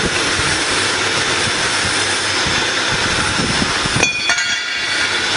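Iron worker multi cutter running steadily, its electric motor driving the belts and flywheels. The sound changes abruptly about four seconds in, and a faint steady whine comes through after it.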